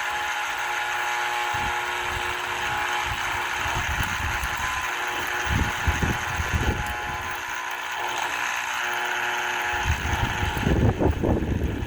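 Small electric motor being run on a high-current supply to burn out its windings: a steady whirring hiss with a thin fixed whine. Near the end the whir drops away as a run of low knocks and thumps starts.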